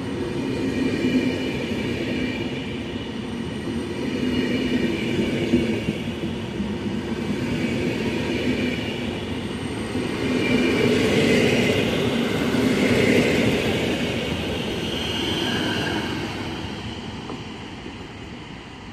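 PKP Intercity passenger coaches passing at speed, a steady rail rumble from the wheels with some high tones in it. It swells about halfway through, then fades as the end of the train pulls away.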